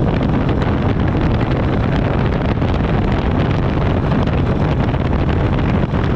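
Wind buffeting the microphone over the steady drone of a Harley-Davidson V-twin motorcycle cruising at highway speed.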